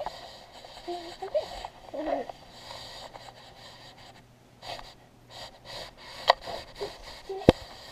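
Kitten sniffing and breathing right against a GoPro's microphone, with fur rustling over the camera and two sharp knocks on the housing, the louder one near the end.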